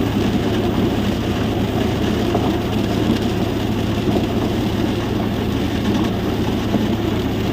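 Borewell drilling rig's engine running steadily under load, a loud, even mechanical drone.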